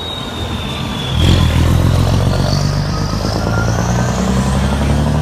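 Volvo F16 truck's straight-six diesel engine running as the tractor pulls a tanker trailer around. It gets louder about a second in and then holds steady.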